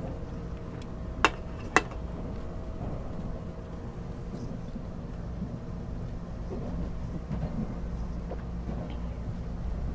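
Cabin noise of a Taiwan Railways Puyuma express, a TEMU2000 tilting electric multiple unit, in motion: a steady low rumble with a faint hum that fades a few seconds in. Two sharp clicks about half a second apart, a little over a second in, are the loudest sounds.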